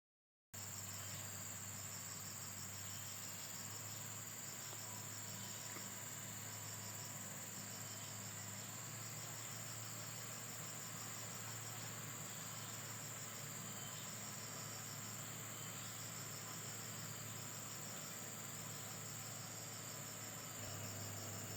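Insects chirping in a steady train of rapid, high-pitched pulses over a constant high whine, with a low steady hum underneath that grows slightly louder near the end.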